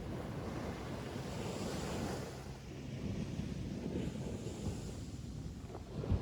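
Ocean waves breaking and washing up a beach, the surf swelling about two seconds in and again later. Wind buffets the microphone, with a low thump near the end.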